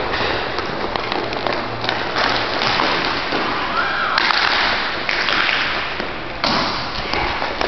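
Roller hockey stick tapping and pushing a puck across plastic sport-court floor tiles, with scattered light thumps and taps over a steady rink noise.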